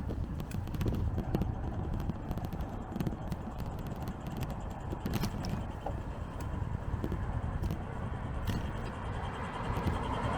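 Steady low rumble of a bicycle ride, with scattered clicks and rattles throughout.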